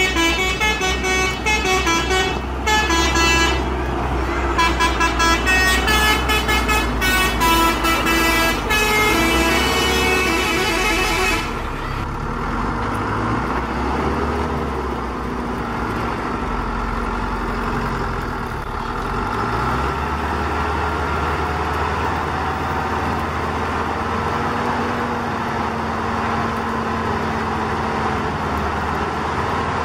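A horn sounding a quick run of different notes, over and over, for about the first eleven seconds, then stopping. After that, a steady hum of the radio-controlled tracked dump trucks' motors and gears as they crawl along.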